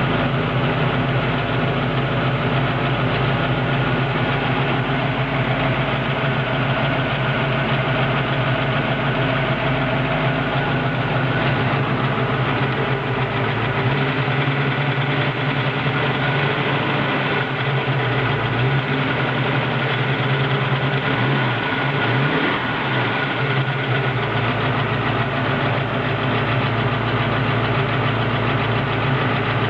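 Warm 331 cubic-inch stroker V8 idling steadily with lifter and valvetrain ticking, which the owner wonders may be excessive. The idle wavers briefly about three quarters of the way through.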